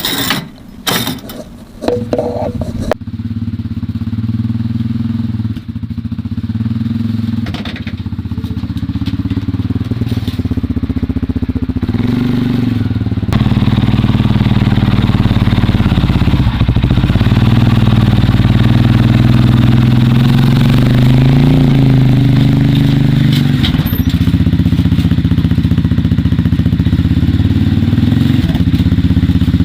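A few metal clanks, then an ATV engine running from about three seconds in, its pitch rising and falling with the throttle as the quad is ridden up aluminium loading ramps, getting louder about halfway through.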